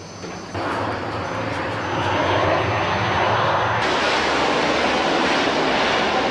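Canadair water-bomber aircraft flying close by, its engine noise loud and even. It comes in sharply about half a second in and grows louder around two seconds in.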